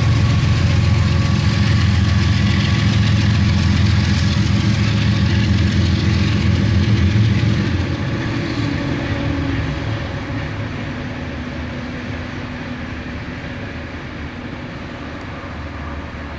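Diesel locomotive engine drone and the rolling noise of a loaded coal train moving away. The low engine drone drops off sharply about seven seconds in, and the whole sound then keeps fading.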